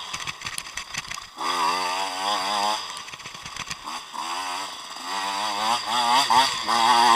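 Dirt bike engine revving hard in surges as the rider works the throttle on a dirt track. It drops back off the throttle near the start, again around three seconds in and briefly after four seconds, then pulls up and revs high toward the end.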